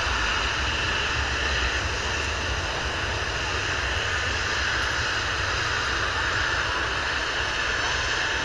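Jet engines of a Ryanair Boeing 737-800 (CFM56 turbofans) running steadily at low taxi power, a steady whine over a low rumble, with no spool-up.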